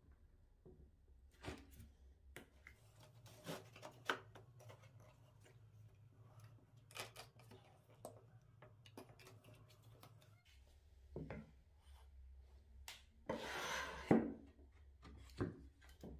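Handling of a wooden router jig: plastic star knobs turned and plywood arms slid and tapped, giving scattered light clicks and knocks. Near the end there is a longer scraping slide of wood on wood, ending in a knock, which is the loudest sound.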